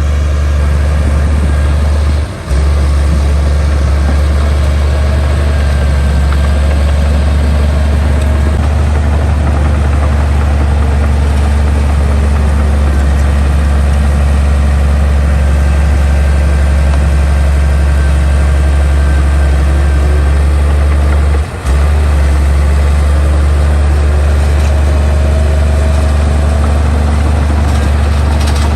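Heavy diesel engine of earthmoving machinery running steadily with a loud, even low drone, broken twice by a sudden momentary drop.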